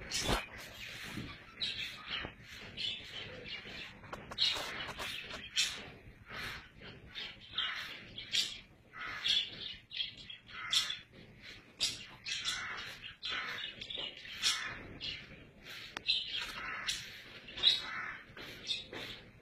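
Animal calls: short, high-pitched chirps and squeals coming irregularly, one or two a second.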